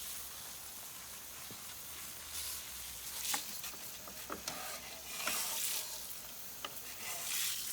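Foaming coil cleaner fizzing and crackling on an air conditioner's coils, a steady hiss with scattered small pops: the cleaner is still working.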